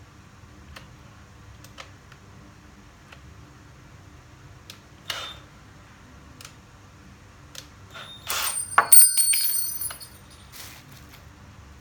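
Small metal parts being handled: scattered light clicks, then a burst of metallic clinks and rattling with a ringing tone about eight to ten seconds in, typical of swapping a drill bit for a screwdriver bit and picking up screws. No drill motor is running.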